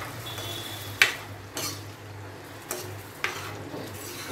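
Spatula stirring a watery green masala gravy in a non-stick pan, knocking and scraping against the pan about four times over a faint sizzle of the liquid heating on high flame.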